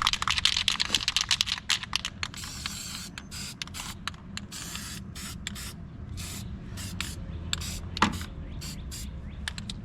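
Spray hissing onto freshly cleaned and refitted car battery terminals: a quick run of short bursts for the first few seconds, then scattered short spurts until near the end.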